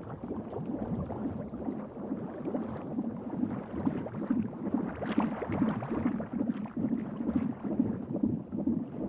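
Low, murky gurgling of liquid, pulsing unevenly without a break.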